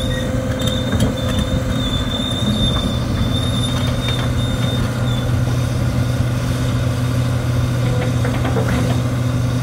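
Komatsu PC300LC-7 crawler excavator travelling forward on its tracks, its six-cylinder diesel engine running steadily. A thin high squeal runs through the first half and stops about five seconds in.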